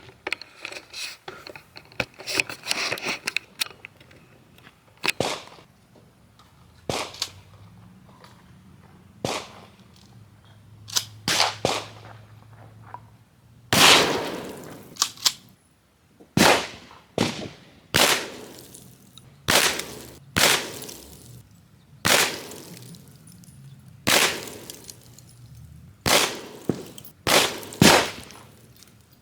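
Gunfire at a shooting range: scattered, fainter shots at first, then a steady string of loud shots about one or two a second from about halfway through, the loudest near the middle.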